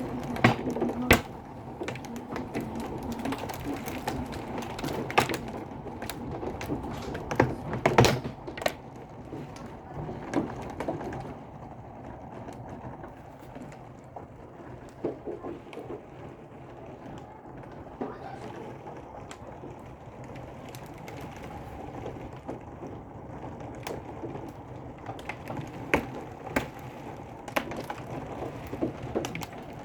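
Severe-storm downpour: a steady rush with irregular sharp taps of precipitation striking nearby surfaces, heavier in the first eight seconds or so, then lighter.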